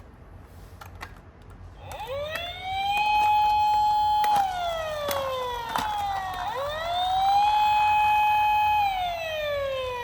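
Wailing siren: about two seconds in it rises and holds a steady high note, then falls, rises again to the same note, holds, and falls away near the end. A few light clicks sound over it.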